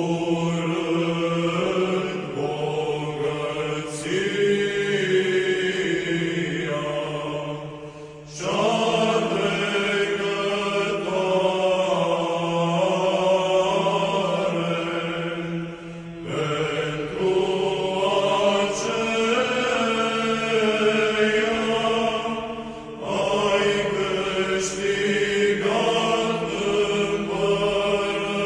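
Orthodox church chant: voices sing a slow melody over a steady held drone note, in long phrases with three short breaks between them.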